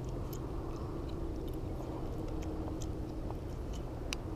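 Low steady rumble of wind and handling noise on the microphone, with scattered faint clicks and rustles as a caught bass is held and gripped by the lip to be unhooked. A faint steady hum runs underneath and fades about three seconds in.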